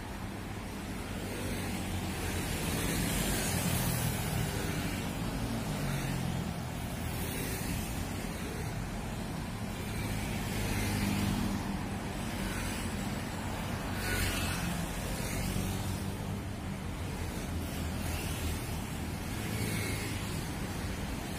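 Road traffic: cars and motorbikes driving past on a multi-lane road, a steady rush of tyres and engines that swells several times as vehicles go by.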